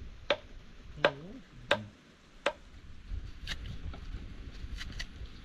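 A knife chopping on a wooden board: about seven sharp, irregularly spaced strikes.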